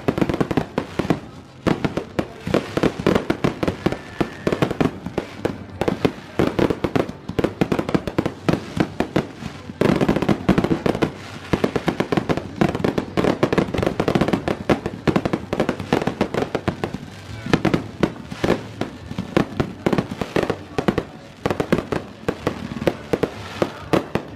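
Fireworks going off in a dense, rapid barrage of bangs and crackles, many a second, with no real pause.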